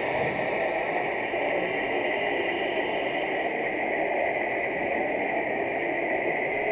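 Steady hiss-like noise with no distinct events.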